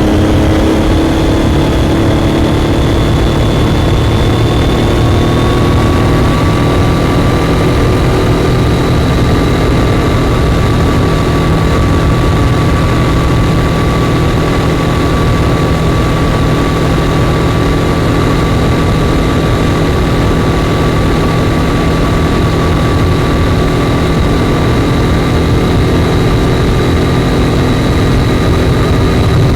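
Triumph Daytona 675's inline three-cylinder engine running at steady revs. Its pitch climbs slightly over the first few seconds, then holds even.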